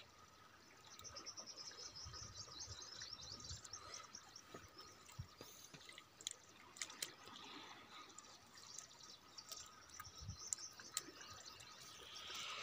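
Faint river-side sound of hands working a fish free of a net in shallow water: soft water sounds with a few small clicks and low knocks. From about a second in, a high, rapid chirping trill runs for a couple of seconds.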